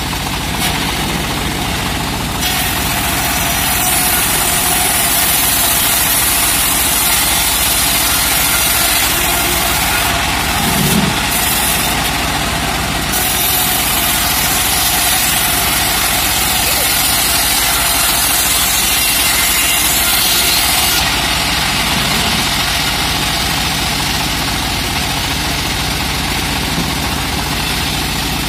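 Homemade band saw sawmill running and ripping a teak log lengthwise: a steady machine drone with the hiss of the blade cutting through the wood.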